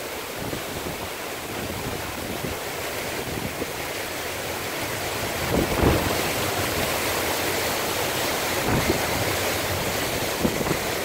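Hurricane wind howling with driving rain, gusts buffeting the microphone, the strongest about six seconds in.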